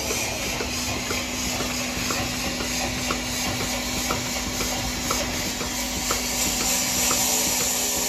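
Robotic milking machine running at a cow's udder: a steady hiss of vacuum air over a low steady hum, with regular light clicks about once a second from the pulsators.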